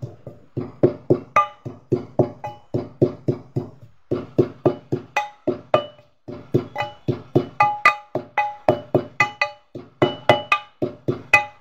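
Pestle pounding in a tall metal mortar, about three to four strikes a second, each strike ringing. The pounding breaks off briefly about six seconds in.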